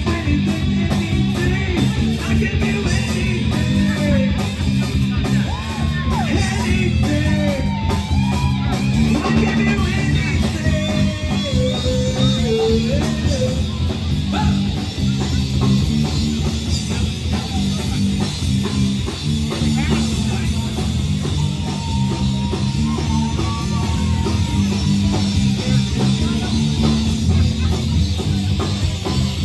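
Live rock band playing with guitar and drum kit, steady and loud.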